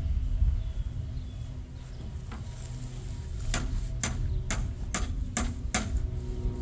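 Wind buffeting the microphone as a loud, uneven low rumble, with a run of about seven sharp clicks, roughly two a second, in the second half.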